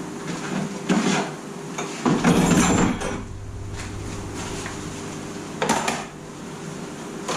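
Metal clanks and knocks from tools and parts being handled at a milling machine: a knock about a second in, a rattling clatter lasting about a second soon after, and another knock near the end, over a steady machine hum.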